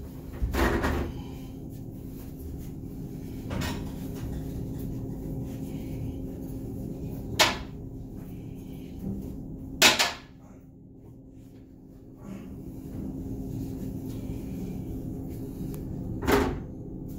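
Watery diarrhoea from the occupant of the next toilet stall: about five short, sudden bursts of it a few seconds apart, over a steady low hum.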